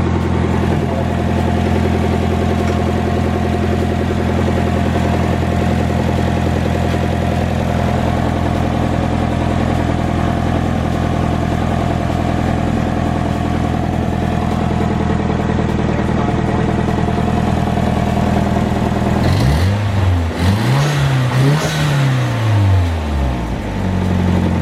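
Nissan S15's turbocharged SR20DET inline-four idling steadily, then revved in about three quick blips near the end before dropping back to idle.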